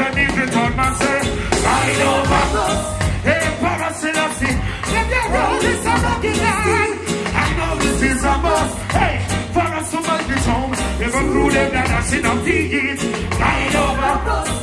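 Live reggae band playing loudly on stage, with a steady bass and drum beat under guitar and keyboards, and a singer's voice over the band.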